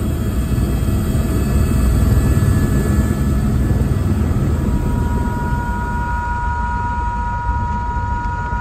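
Helicopter rotor and engine heard from inside the cabin while it sits on the ground on its pad. A dense, loud low rumble eases from about halfway through, as a steady high whine comes in.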